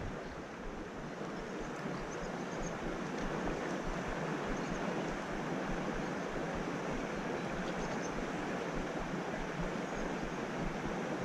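River water rushing steadily over shallow rapids, an even, unbroken hiss.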